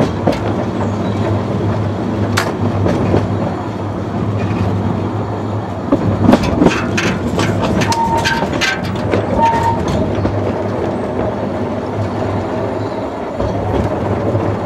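Narrow-gauge locomotive running light along the track: a steady low drone from the loco throughout, with a rapid run of wheel clicks and knocks over the rails about six to nine seconds in and two brief high-pitched squeaks among them.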